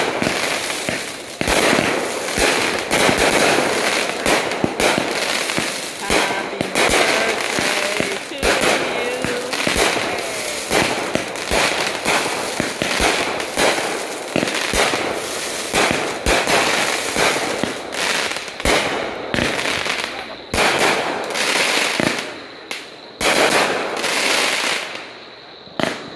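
Aerial fireworks bursting and crackling in a dense barrage, many sharp reports in quick succession, thinning out near the end.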